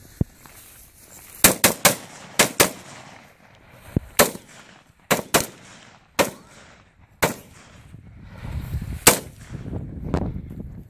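Rifle fire: about a dozen sharp shots in irregular single shots and quick pairs and triplets, with a low rumble underneath near the end.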